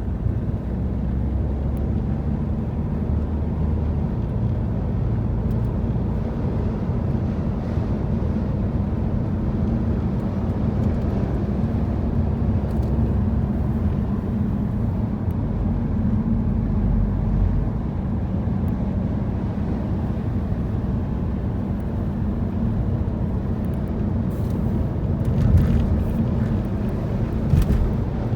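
A car driving with a steady low rumble of road and engine noise. Two brief louder thumps come near the end.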